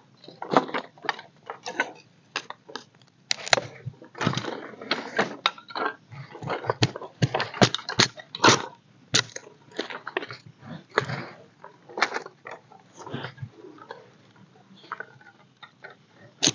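Dry sticks being snapped and handled: a run of irregular sharp cracks with rustling between them.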